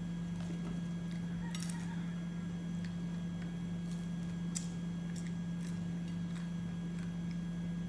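A crispy fried whole chicken is torn apart by hand and chewed, giving scattered crackles and small clicks: a cluster about one and a half seconds in, and sharper single ticks later. Under them runs a steady low hum.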